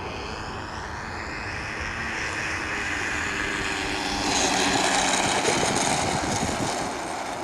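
Radio-controlled model airplane flying past, its motor and propeller whine growing louder, loudest a little past the middle, then fading as it moves away.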